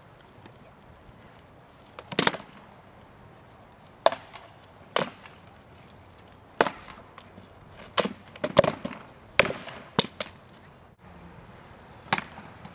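Rattan swords striking wooden shields and armour in sword-and-shield armored combat sparring: about ten sharp wooden cracks at an irregular pace, coming in a quick flurry a little past the middle.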